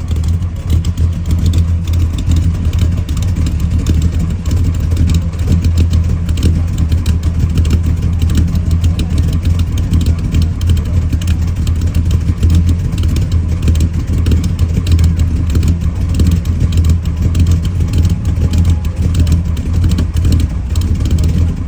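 1955 Chevrolet's engine running steadily at a low, even exhaust note, without revving.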